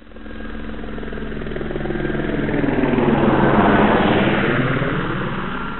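Helicopter engine and rotor noise growing louder to a peak about midway, then fading away toward the end.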